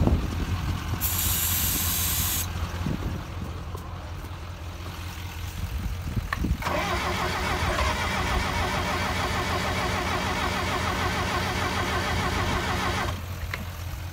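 Aerosol starting fluid sprayed into a Bobcat skid steer's spark-ignition engine for about a second and a half, then the starter cranks the engine steadily for about six seconds and stops without it starting. The engine gets no fuel of its own, which the owner puts down to a bad fuel pump or a fuel filter that needs repriming. Another engine idles steadily underneath throughout.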